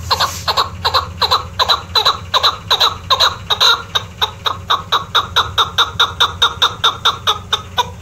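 Chukar partridge calling: a fast run of short, repeated chuck notes, about four a second, that stops just before the end.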